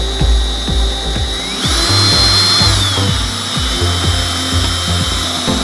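Power drill running, its motor whine climbing about a second and a half in, holding, then easing back down about a second later. Background music with a steady beat plays under it.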